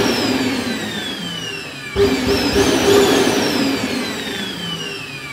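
Cyclonic canister vacuum cleaner motor running with a loud rush of air and a whine that slowly falls in pitch. About two seconds in it surges, the whine rising briefly before falling again, and then it gradually fades.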